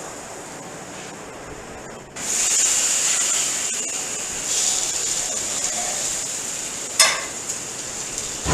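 Chicken sizzling on a gas grill, a hiss that gets suddenly much louder about two seconds in. A sharp clink comes near the end.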